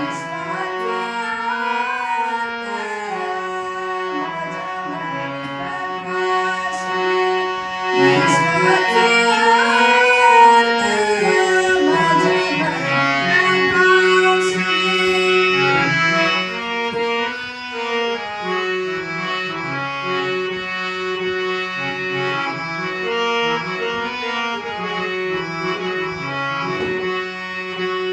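Melody played on a harmonium, with sustained reedy notes that move from pitch to pitch. It gets louder about eight seconds in.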